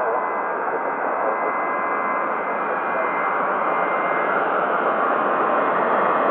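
Steady hiss and static from an air traffic control radio feed between transmissions, with a few faint steady tones running through it.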